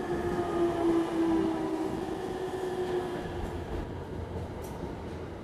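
Electric train's motor whine, a tone that falls slowly in pitch as the train slows, over a low rolling rumble. The whine fades out about three to four seconds in, leaving a low rumble.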